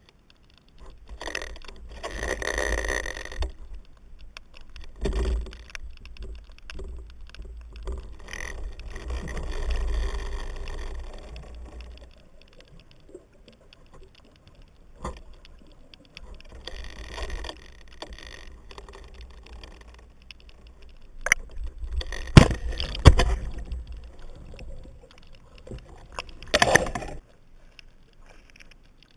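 Muffled underwater sound heard through a GoPro housing while swimming with a speargun: a low rumble of moving water with irregular swells of swishing noise and a few sharp knocks, the loudest a pair of knocks about two-thirds of the way through.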